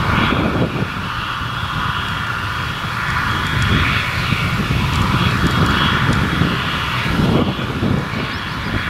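Diesel engine of a narrow-gauge peat railway locomotive running steadily.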